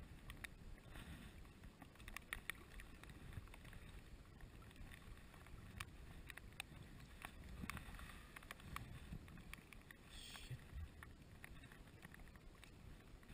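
Faint wind rumble and small waves lapping at the water's edge, with scattered light ticks.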